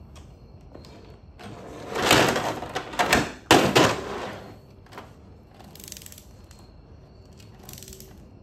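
A steel double-row timing chain clattering and rattling against a table as it is handled and repositioned in a riveting tool. The rattling is loudest from about two to four and a half seconds in, with a sharp clack partway through, followed by a few fainter short rattles.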